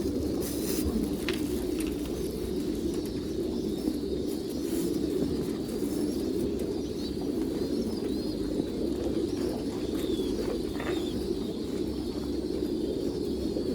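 A flock of domestic pigeons cooing all at once, many coos overlapping into a steady low chorus. A few faint higher chirps sound over it.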